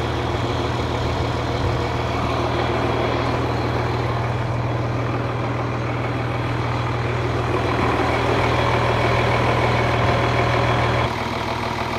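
Heavy diesel engine of a large recovery vehicle idling steadily, with an abrupt drop in level about a second before the end.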